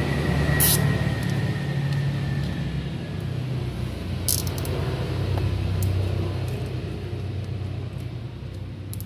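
Low rumble of a vehicle engine running nearby, swelling and fading. A few sharp clicks, one about a second in and a short cluster about four seconds in, come from a plastic cable tie being fastened around a CV joint boot.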